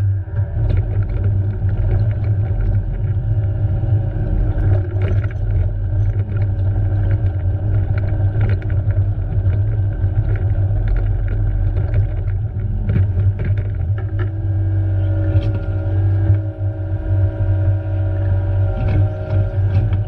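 Excavator's diesel engine running steadily with a deep rumble, a whine over it that shifts pitch about fourteen seconds in, and scattered short knocks.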